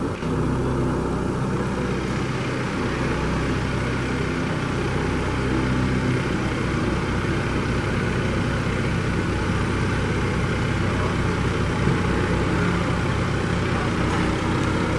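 Diesel engine of a John Deere utility tractor running steadily at low speed as the tractor moves slowly past, pulling a utility trailer. A low, even pulsing sets in about halfway through as it comes closer.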